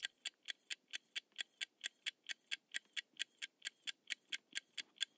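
Countdown timer sound effect: quick, even clock-like ticks, about four a second, marking the time left to answer.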